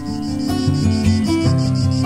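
Solo acoustic guitar music, single plucked notes ringing on. Behind it runs a high, fast-pulsing insect trill.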